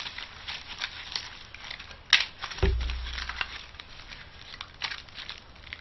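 Plastic packaging being cut open and handled: a run of small crinkles and clicks, a sharp click about two seconds in, then a dull low thump.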